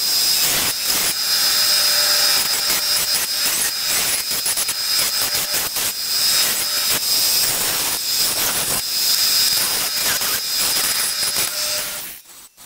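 Benchtop bandsaw with a 3/16-inch, 6 TPI blade cutting through a wooden axe-handle blank: a steady high whine over the rasp of the cut. It stops suddenly near the end.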